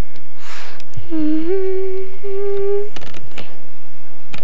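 A person humming a steady note for nearly two seconds. It rises slightly at the start, then holds level with a short break in the middle. A few sharp clicks follow.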